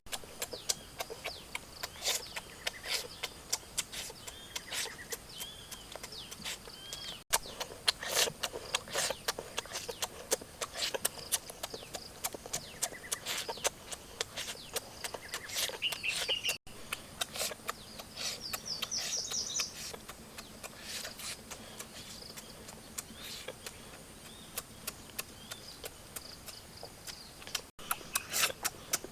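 Birds chirping over a steady background, with frequent short clicks and knocks throughout and three brief dropouts.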